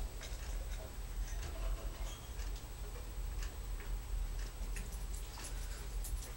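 Faint, irregular light clicks and ticks over a low steady hum.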